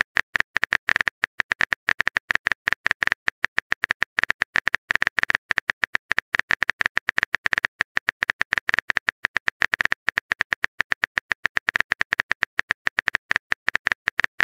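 Rapid, evenly spaced keyboard clicks from a phone texting app's typing sound effect, about nine a second, as a message is typed out letter by letter.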